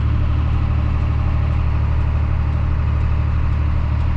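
John Deere 8110 tractor's six-cylinder diesel engine running at a steady, even pace, heard from inside the cab while driving on the road.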